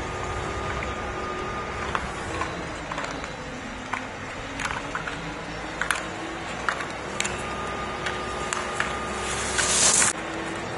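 Alpine racing skis carving hard-packed snow as a racer passes close by: a loud hissing scrape near the end that cuts off suddenly. Under it runs a steady background hum, with a few sharp clicks in the middle.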